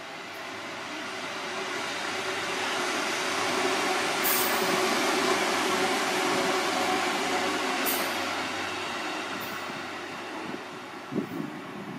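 Seibu 4000 series '52 seats of bliss' electric train passing by, the steady noise of its wheels on the rails swelling to a peak about halfway and then fading. Two sharp high clicks come near the middle, and a short knock comes near the end.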